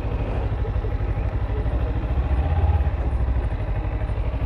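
Kawasaki Ninja 300's parallel-twin engine running steadily at low revs as the bike rolls slowly, with a slight rise in revs about two and a half seconds in.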